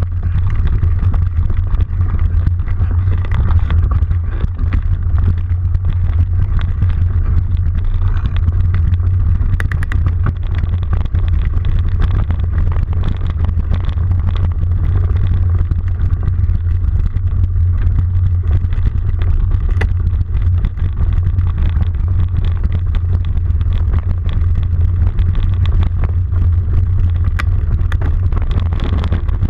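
Steady, loud low rumble of riding along a dirt trail, holding an even pitch throughout, with a few faint clicks.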